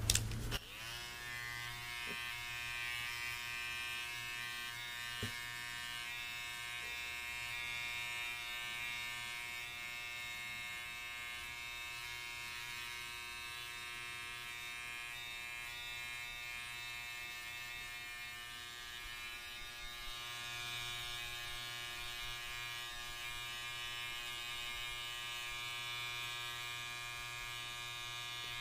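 Electric hair clippers switched on about half a second in, then buzzing steadily as they are worked close to the microphone for a haircut design.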